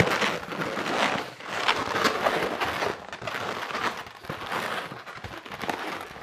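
Latex modelling balloons squeaking and rubbing against each other as they are twisted and a bubble is locked into the base of the head, in short irregular squeaks and rustles.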